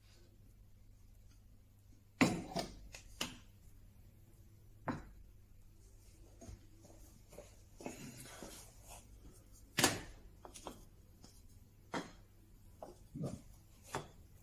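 Heavy wooden blocks being handled and set down on a workbench and a glued-up panel to weight it: a few scattered knocks and clunks, the loudest about two seconds in and near ten seconds, with softer handling noise between.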